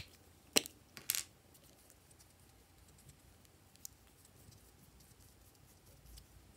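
Plastic lip balm tubes being uncapped: two sharp clicks about half a second apart as the caps come off, then quiet handling with one faint tick.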